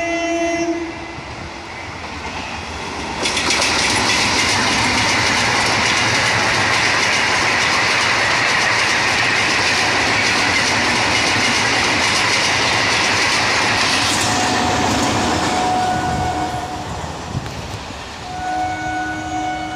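Electric MEMU train sounding its horn briefly, then passing close at speed with a loud rush of wheels on rail and the clickety-clack of rail joints for about ten seconds. As it fades, train horns sound again twice, the second time near the end.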